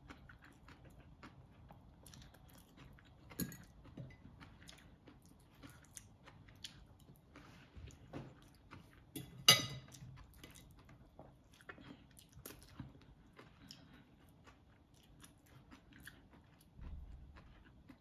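Quiet eating of mud crab and noodles: chewing with scattered small clicks and cracks, the loudest a sharp crack about halfway through, and a low thud near the end.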